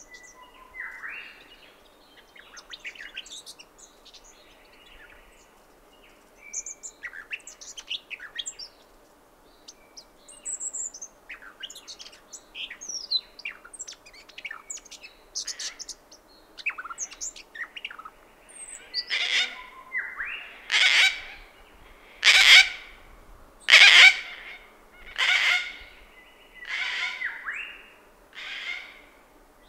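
Small birds, a Brown Thornbill among them, chirping and twittering in quick high notes. From about two-thirds of the way in, a Gang-gang Cockatoo gives about eight harsh, creaky screeches, roughly one every second and a half, which are the loudest calls.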